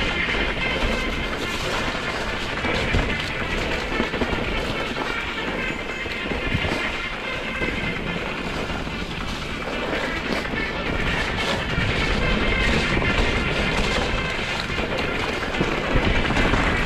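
Mountain bike ridden over a rough trail: steady rolling noise from the tyres with continuous rattling and clatter from the bike.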